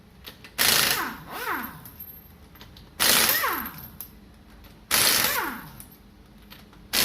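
An impact wrench with a 21 mm socket is run in short bursts, one lug nut after another, to take the wheel off. It rattles for about a second each time and its motor whines down in pitch as the trigger is let go. Four bursts come about two seconds apart.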